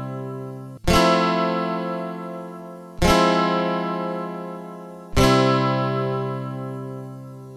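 Background music: single acoustic guitar chords strummed about every two seconds, three times, each left to ring out and fade.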